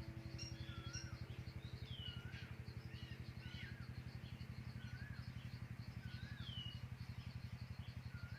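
Faint wild birdsong: short whistled notes that rise and fall, several a second, over a steady low hum.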